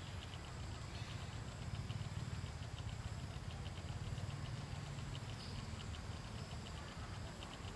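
Forest ambience: a rapid, high-pitched chirping pulsing several times a second over a steady low rumble.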